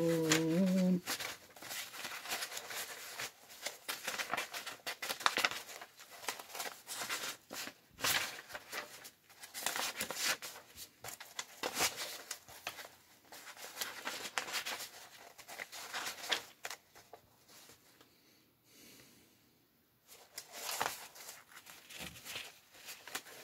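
Sheets of printed paper rustling and crinkling as the pages of a printed manual are turned and leafed through by hand, in irregular handfuls with short pauses.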